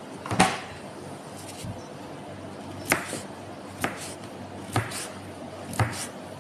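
Kitchen knife slicing through a raw peeled potato into rounds and knocking on a plastic cutting board: a louder knock about half a second in, then four sharp strokes roughly one a second from about three seconds in.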